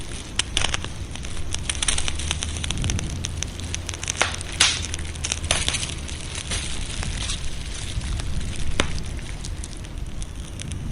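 Wood fire crackling with frequent sharp pops, thickest in the middle, including a loud pop about four and a half seconds in, over a steady low rumble.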